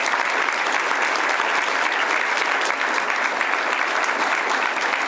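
Audience applauding: many people clapping in a steady, dense patter.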